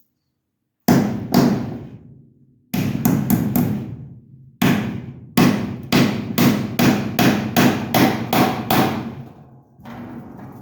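Hammer blows, as in nailing while building a pen. Two strikes come about a second in, then a quick group of four, then a steady run of about a dozen strikes at roughly three a second, stopping shortly before the end.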